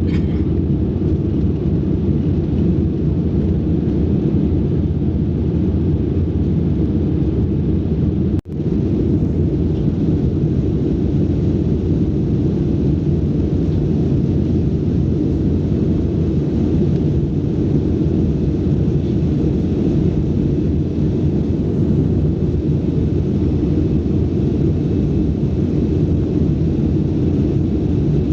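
Steady cabin rumble of an airplane in flight, a constant low drone of engines and airflow, with a brief break about eight seconds in.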